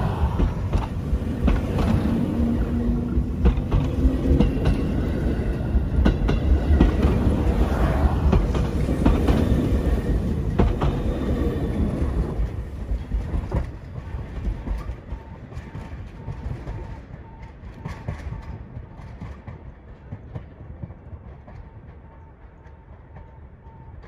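JR Hokkaido 721 series electric train departing and running past at close range, its wheels clattering over the rail joints. The sound falls away gradually after the last car passes about twelve seconds in.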